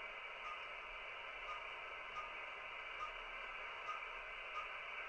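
Faint clicks of keys being pressed on a Racal 25 handheld radio's keypad while scrolling its menu: about six of them, under a second apart, each with a tiny blip, over a steady hiss.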